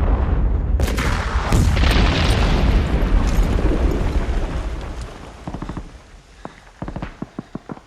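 Heavy explosions booming and rumbling, with two sharp blasts about a second in, dying away over several seconds. Then short bursts of rapid automatic gunfire.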